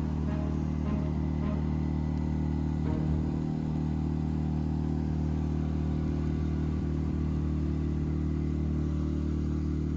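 Outboard motor of an aluminium fishing boat running at a steady pitch while the boat is under way.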